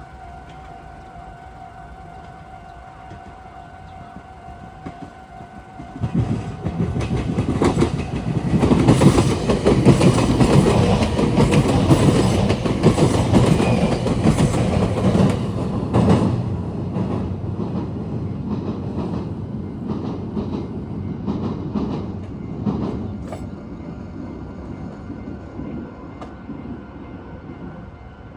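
A Meitetsu electric train passes the junction. It rises suddenly about six seconds in, is loudest through the middle with wheels clacking over the track, then fades away. Before it arrives, a steady electronic level-crossing warning tone sounds.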